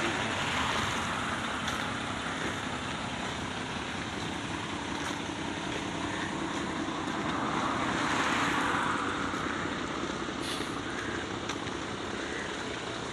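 Heavy diesel trucks running at a standstill, with road traffic noise. The noise swells and fades about eight seconds in.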